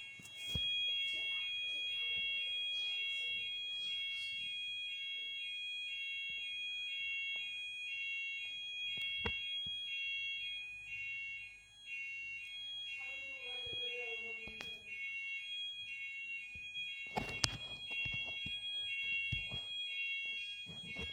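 Electronic fire alarm sounding continuously, a high tone that switches back and forth between two pitches in quick even steps, over a steadier high tone. A few knocks come near the end.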